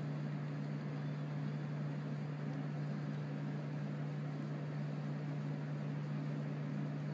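A steady low machine hum over a constant hiss, unchanging throughout.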